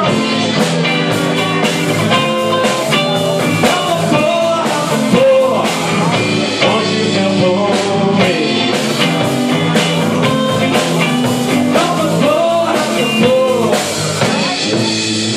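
Live blues-rock trio playing an instrumental passage: electric guitar lead with bending notes over bass guitar and a drum kit.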